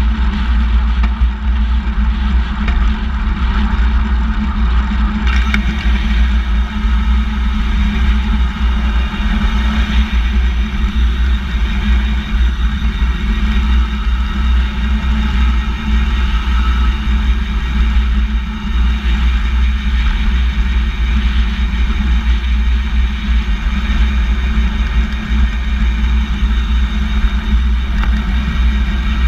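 Steady wind buffeting and road rumble on the camera's microphone as a handbike rolls along asphalt, with the hum of its chain drivetrain.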